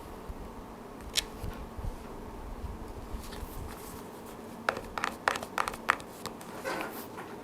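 Hands handling a phone box and its packaging: a sharp click about a second in, a quick cluster of clicks and taps around five to six seconds in, then a brief rustle.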